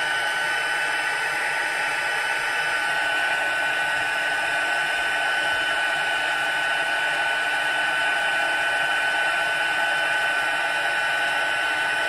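Handheld craft embossing heat gun running steadily, blowing hot air over stamped card to melt embossing powder: an even rush of air with a constant high whine from its fan.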